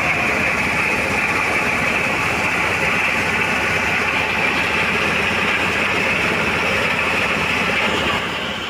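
Engine-driven corn sheller running steadily, a loud dense mechanical noise that eases off slightly in the last half second.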